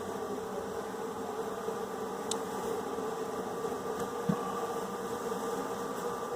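Small honeybee swarm buzzing with a steady, continuous hum, with a couple of faint clicks.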